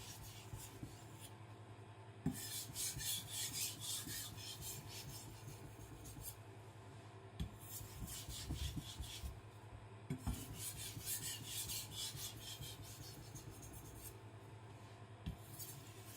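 Knife blade stroked back and forth on a Kitayama 4000 fine-grit whetstone, in several runs of quick scraping strokes separated by short pauses. The stone is loading up a little, since not enough pressure is used to release fresh abrasive.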